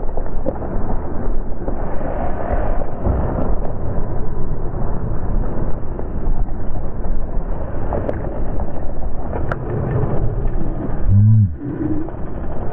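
Wind buffeting the action camera's microphone while a mountain bike rolls over a rocky singletrack trail, with a few sharp knocks from the bike over rocks.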